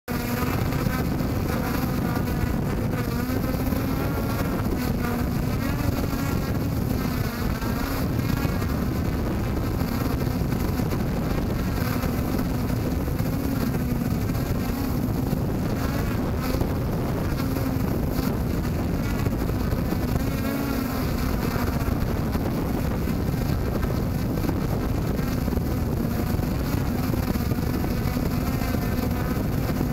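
Traxxas Aton quadcopter's electric motors and propellers running in a hover, heard close up from the camera it carries: a steady buzzing drone over a rush of prop wash. The pitch wavers slightly as the throttle is adjusted.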